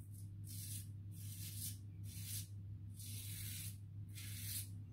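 Razorine Flatboy double-edge safety razor with a Kai blade scraping through lathered stubble on the neck: a run of short, faint rasping strokes, roughly two a second.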